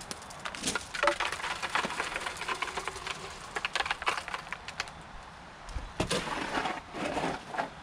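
Shovel scraping and knocking in a plastic mixing tub as wet concrete is scooped out and poured into a plastic jack-o'-lantern pail, with footsteps crunching on gravel. The noise comes in three bouts of scrapes and crunches.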